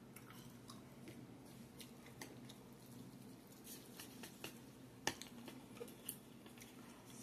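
Chopsticks clicking and tapping against a bowl while stirring ramen noodles, with soft chewing; the sharpest taps come about five and six seconds in, over a low steady hum.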